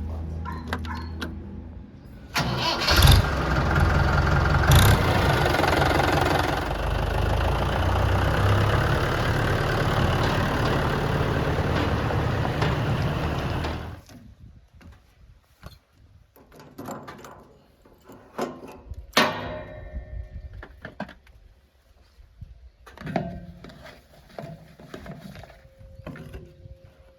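Heavy machinery diesel engine running, then suddenly revving hard about two seconds in, with two sharp knocks soon after. It stays loud until it drops away sharply about fourteen seconds in, leaving only faint scattered knocks.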